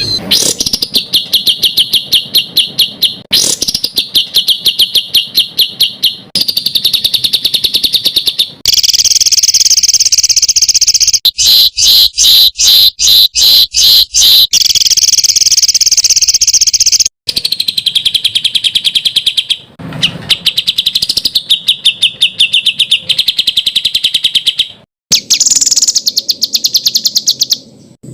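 Songbird song made of harsh, rapid-fire repeated notes ('tembakan kasar'), high-pitched and very fast, in segments that cut abruptly from one phrase to the next as in an edited masteran training track.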